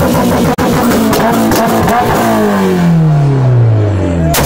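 Car engine revved hard, held high, then its pitch slides steadily down over the last two seconds.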